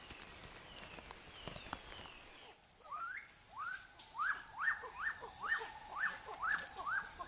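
Tropical rainforest ambience. Short falling chirps and light clicks come first. From about two and a half seconds in, an animal calls over a steady high insect drone: a string of short rising-then-falling notes, about two a second.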